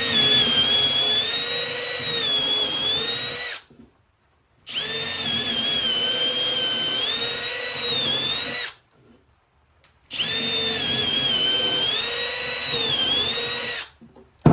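Power drill boring three 7/32-inch pilot holes into a wooden 4x4: three runs of about four seconds each with short pauses between them. The motor's whine wavers and sags as the bit works through the wood.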